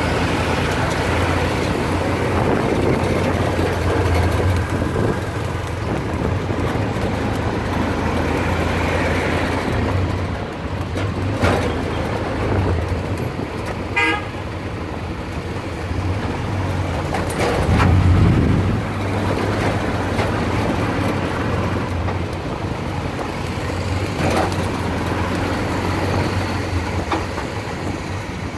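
City street traffic from a moving vehicle: its engine hums steadily low, and short horn toots sound a few times around the middle. Near two-thirds of the way in, a louder low rumble rises and falls as a vehicle passes.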